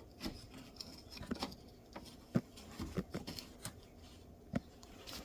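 Faint, irregular clicks and light taps, about a dozen, scattered over a quiet background hiss, typical of hands handling parts; the loudest tap comes about halfway through.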